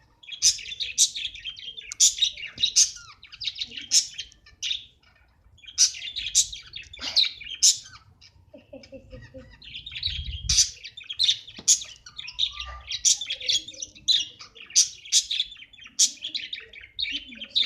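Budgerigars chirping in quick runs of sharp chirps, broken by a couple of short pauses.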